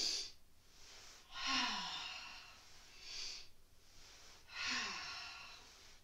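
A woman breathing deeply and audibly: hissing inhales alternate with exhales voiced as short falling sighs, a breath about every second and a half, paced to the steps of a seated yoga exercise.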